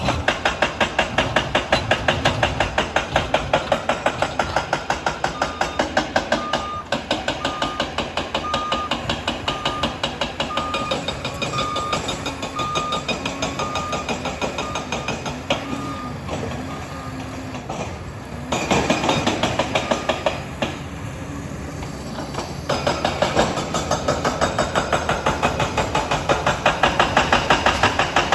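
Liebherr 746 crawler dozer working, its engine running under a fast, continuous clatter of steel tracks. A reversing alarm beeps about once a second from about five seconds in until around sixteen seconds, as the dozer backs up. The machine is quieter for a few seconds after about eighteen seconds, then picks up again.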